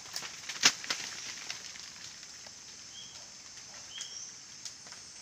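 Quiet outdoor ambience in undergrowth. A few sharp cracks of breaking twigs and rustling in the first second, then two or three short bird chirps over a steady high hiss.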